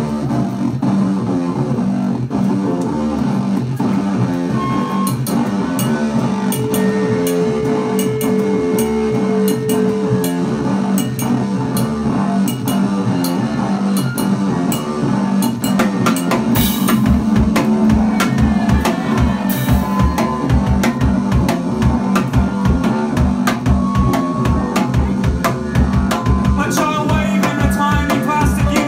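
Live indie-punk band playing a song with drum kit and electric guitar in a steady rock beat, with no vocals; the bass drum hits come in much harder about halfway through.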